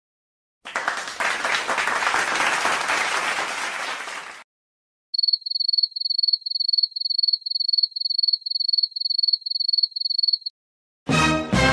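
A burst of crowd applause for about four seconds, then a high electronic beep repeating about three times a second for around five seconds. Music begins at the very end.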